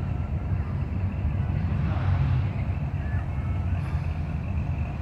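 Cars driving slowly past on a street: a steady low engine and tyre rumble, swelling as one vehicle passes about two seconds in.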